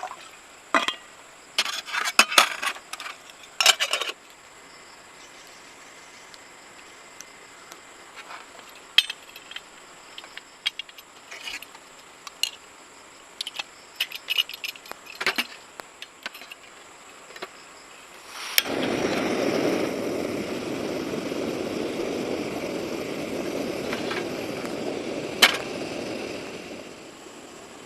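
Small hard objects clinking and knocking, a quick cluster in the first few seconds and then scattered taps. About two-thirds of the way in, a steady rushing noise starts abruptly and runs for about eight seconds before fading off, with one sharp click partway through.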